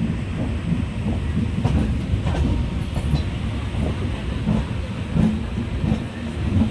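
Indian Railways express train running on the track: a steady low rumble of the wheels with irregular clattering knocks over the rail joints.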